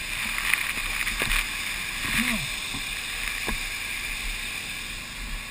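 Fire hose fog nozzle spraying water in a steady hiss, with a few brief knocks.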